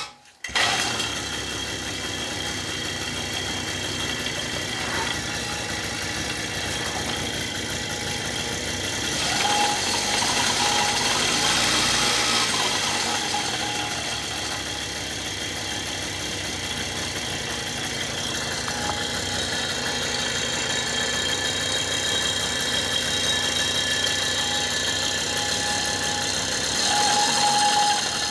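Hercules Prima moped's two-stroke engine, cutting in suddenly and then running steadily, revving up a little partway through and again near the end. A thin whining tone comes and goes over it: the odd engine noise the owner is asking about, cause unknown.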